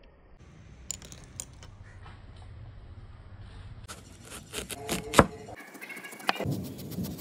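A large cleaver-style knife cutting into a whole watermelon on a wooden board: a few sharp knocks and cracks as the blade goes through the rind, the loudest about five seconds in, after faint clicks earlier on.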